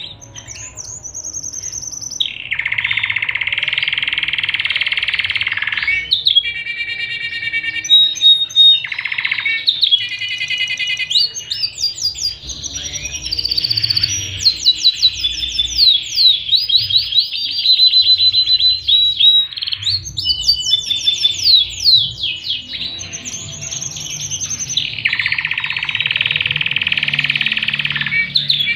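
Domestic canary singing a long, varied song: buzzy rolling trills held for a few seconds near the start and again near the end, with runs of rapid falling whistles and quickly repeated notes in between.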